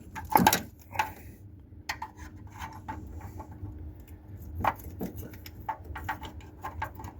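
Metal hand tools clinking and knocking during spark plug removal: irregular sharp taps and clicks, the loudest about half a second in, again at one second and once more after about four and a half seconds.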